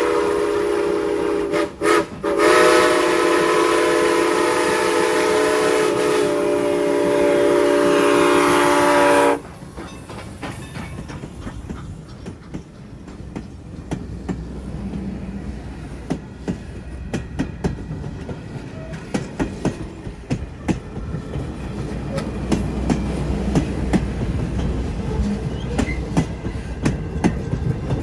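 Steam locomotive whistle sounding one long chord blast, briefly broken twice about two seconds in, then cutting off sharply after about nine seconds. It is followed by the train's wheels clicking over rail joints, a rhythmic clickety-clack with a low rumble that grows louder as the train passes.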